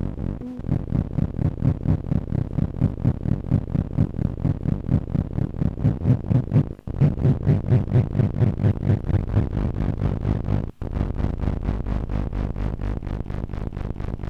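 Optical feedback from a Tektronix 2225 oscilloscope's CRT screen into a Lite2Sound BC photodiode amplifier: a low electronic buzzing drone pulsing about four times a second. The tone is modulated as the trace moves across the screen and under the grid lines while the scope's controls are turned. It cuts out briefly twice, once near the middle and once about three-quarters of the way through.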